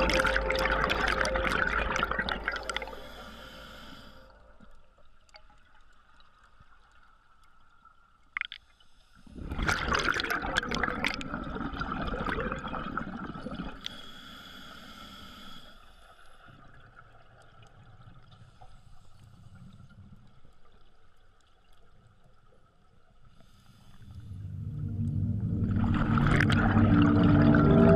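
Scuba regulator exhaust bubbles underwater: two bubbling bursts several seconds apart, each lasting a few seconds, with quieter water between. Ambient music fades out just after the start and swells back in near the end.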